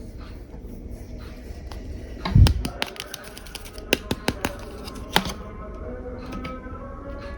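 Small hard plastic toy pieces clicking and tapping as they are handled: a string of sharp, irregular clicks with one heavier thump about two and a half seconds in.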